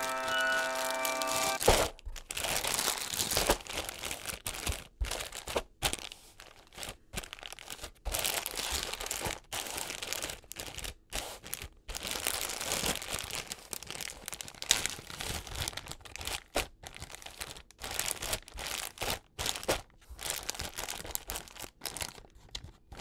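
A clear plastic zip-top bag of dried beans being squeezed and handled: the plastic crinkles and the beans shift inside, in irregular bursts with short pauses. Music plays briefly at the start and cuts off about two seconds in.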